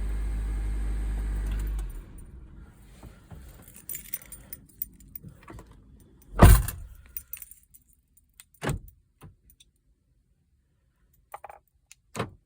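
Car engine running steadily, then shut off about two seconds in. Keys rattle and click, and a car door shuts with a loud thud about six and a half seconds in, followed by two more sharp knocks.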